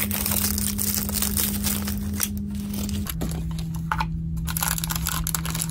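Plastic wrapping crinkling and tearing as a small cardboard mystery toy box is unwrapped and opened, then paper packing rustling inside it: many quick crackles throughout.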